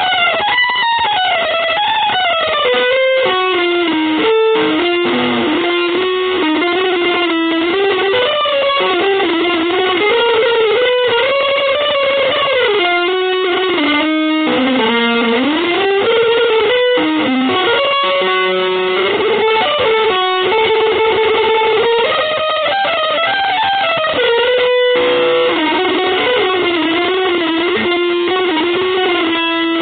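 Electric guitar playing a winding, free-jazz style melodic line full of slides and pitch bends over a dense backing.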